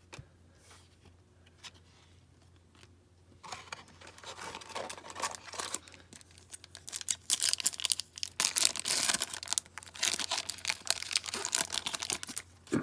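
Hockey card pack wrapper being torn open and crinkled in the hands: quiet at first, then a long run of crackling rips and crumpling starting about three and a half seconds in, loudest in the second half.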